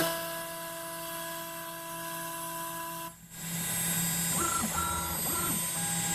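CNC router cutting a groove in a UHMW plastic plate: the router motor runs with a steady whine over a low hum, and the machine's stepper motors whine and shift pitch as the axes move. The sound drops away briefly about three seconds in.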